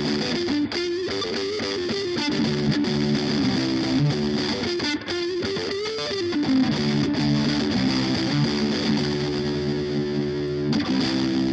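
Distorted electric guitar playing an instrumental break, with notes bent up and down about a second in and again around five to six seconds, then steadier held notes from about seven seconds on.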